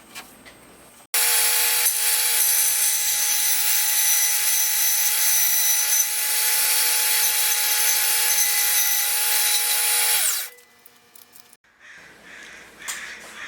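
Restored vintage Black & Decker 9411 band saw running: a steady motor whine with a hiss that starts suddenly about a second in. After about nine seconds it is switched off and the whine falls in pitch as the saw winds down.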